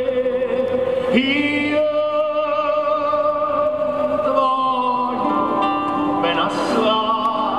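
A man singing long held notes with instrumental accompaniment, a slow song played over a large outdoor sound system.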